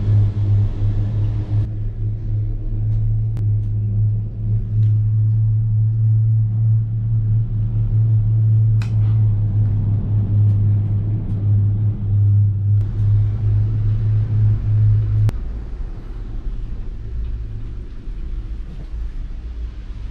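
Cable car gondola cabin riding along the cable: a steady low hum over a rumble, with a few light clicks. The hum cuts off suddenly about fifteen seconds in, leaving the quieter rumble.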